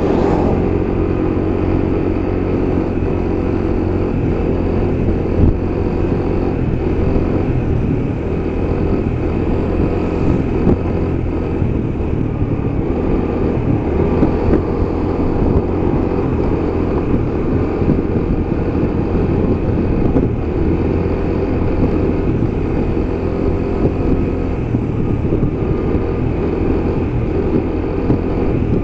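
A car driving at steady speed: engine hum and tyre-on-road noise, running evenly without a pause.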